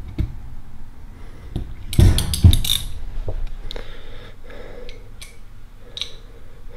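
Metal clicks and clinks of DeWalt reversible ratcheting combination wrenches being handled, with the click of a direction switch being flipped. A cluster of sharper clinks comes about two seconds in, with lighter scattered clicks after it.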